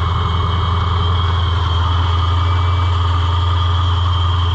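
Ford Mustang engine idling steadily, an even low hum with no change in speed.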